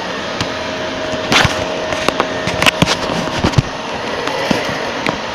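Shark Rotator Professional Lift-Away upright vacuum cleaner running on carpet, a steady motor rush with a faint steady whine, with a quick run of sharp clicks and pops from about a second in to past the middle.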